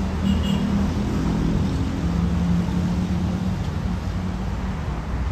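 Airbus A319-115's CFM56-5B jet engines at takeoff thrust: a steady low rumble with a faint drone in it, as the airliner climbs out.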